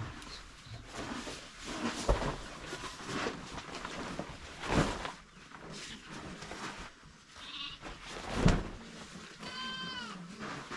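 Sheep bleating among the flock, with one clear high bleat near the end and a fainter call a little before it. A few sudden knocks come in between.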